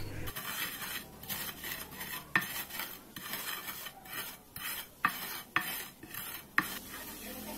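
Crisp fried garlic chips crunching under a pestle that knocks and grinds them against a clay cobek mortar, in uneven strokes.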